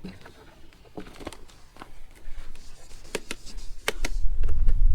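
Handling noises: scattered light clicks and knocks, then a loud low rumble that starts about four seconds in.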